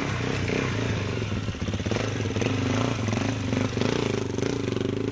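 Dirt bike engine running at low revs as it is ridden slowly over rough ground, its pitch wavering a little as the throttle is worked.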